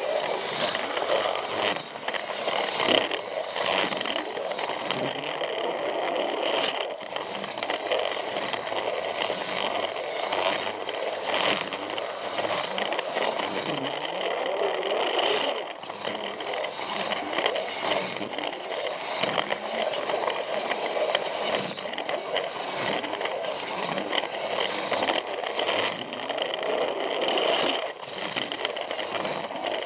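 Plarail toy train running along plastic track: its small motor and gears whir steadily, with a constant scraping rattle of the wheels on the track and occasional sharper clicks, likely at track joints.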